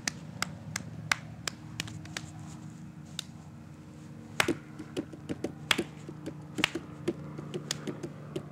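Irregular sharp hand claps and finger snaps, a few a second, the loudest clustered about four to seven seconds in, over a faint steady low hum.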